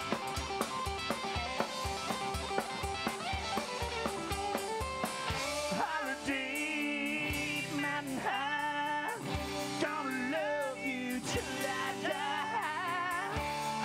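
Live rock band playing: electric guitars over a steady drum beat, with a man's singing voice coming in about six seconds in.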